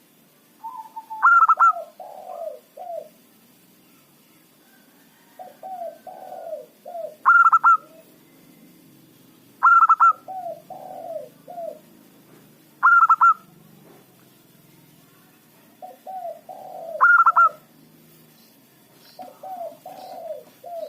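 Zebra dove (perkutut) singing: a loud, high opening note about five times, with runs of lower, softer cooing notes between them, repeating every few seconds.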